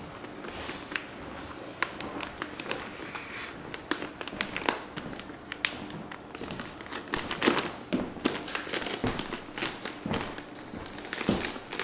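Gift wrapping paper crinkling and tearing as a small child picks at and unwraps a present. The crackles come irregularly and grow louder and busier about halfway through.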